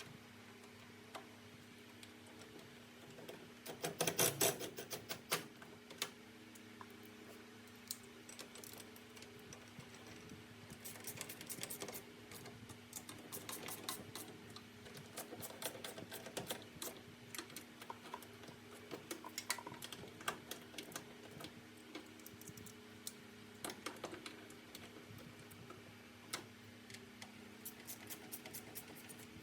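Hand tools working metal: ratchet clicks in quick runs and clanks of wrenches and brackets while bolting a clutch pedal assembly up under a truck's dash, with a loud clatter a few seconds in. A steady low hum runs underneath.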